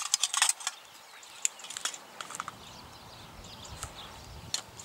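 A quick run of sharp clicks and clatter as items are packed into a container, followed by scattered lighter knocks and clicks.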